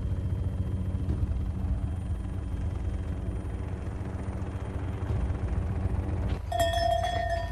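A low, steady rumble. About six seconds in, cowbells start ringing over it.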